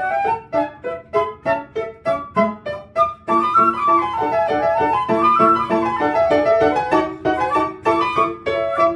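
Concert flute and piano playing a classical piece together: the piano sounds short repeated chords throughout, and from about three seconds in the flute plays a flowing line that rises and falls above them.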